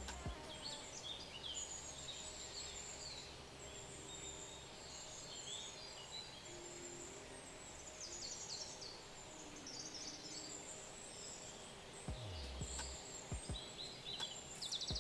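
Many small birds chirping and trilling at once, over faint steady outdoor noise, with a couple of low thumps about twelve seconds in.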